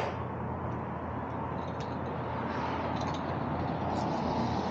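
Road traffic going by: a steady rush of vehicle noise that swells slightly toward the end, with a few faint ticks.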